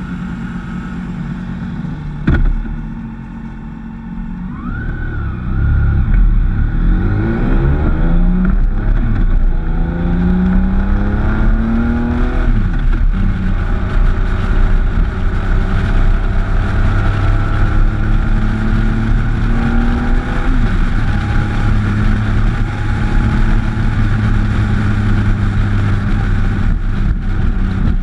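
A motorcycle engine idles, there is a sharp click about two seconds in, then the bike pulls away and accelerates through the gears, the engine pitch rising and dropping back at each shift. From about halfway on it cruises steadily, with wind rushing over the microphone.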